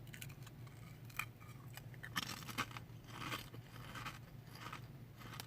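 Faint crunching of Munchos potato crisps being chewed: a scatter of small crackles and clicks, busier from about two seconds in.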